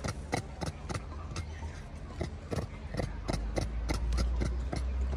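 A quick, irregular series of sharp clicks, several a second, over a low rumble that grows louder in the second half.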